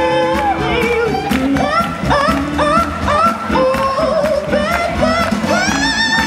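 A man singing a wordless, improvised melody into a microphone, sliding between notes, over a steady beat of sharp percussive clicks about twice a second.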